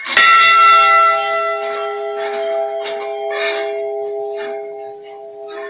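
A model of the Edmund Fitzgerald's ship's bell, struck once and left to ring, its tones slowly fading. It is a memorial toll for one lost crew member.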